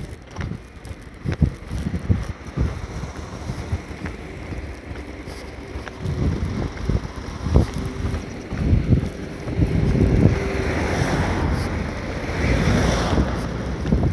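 Wind buffeting the phone's microphone in irregular gusts, growing stronger about halfway through, with a rushing hiss that swells and fades near the end.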